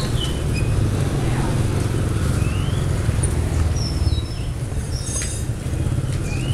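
Street ambience: a steady low engine rumble of motorbike traffic, with a few short high chirps and faint clicks over it.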